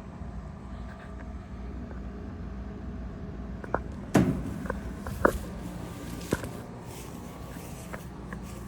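A steady low machine hum with a rumble underneath, broken by a few short sharp knocks. The loudest knock comes about four seconds in, and the others are scattered through the middle.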